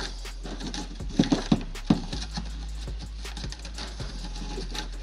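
Pleated paper filter element being torn and pulled out of a motorcycle air filter housing's metal mesh: a run of small crackling, ripping clicks, with several sharp knocks between about one and two seconds in.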